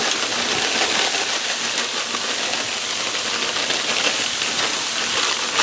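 Cauliflower rice, onion and garlic sizzling steadily on a hot homemade griddle as peas and carrots are poured onto it.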